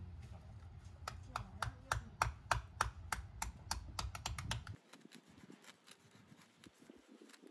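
Small hammers tapping weed-barrier pins down through artificial turf: a quick, irregular run of sharp 'ka' clicks, about three to four a second, that stops about two-thirds of the way through.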